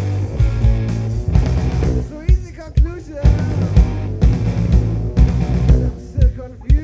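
Blues-rock band playing live: a steady kick-drum beat under bass and electric guitar, with two short breaks filled by sliding, bending notes.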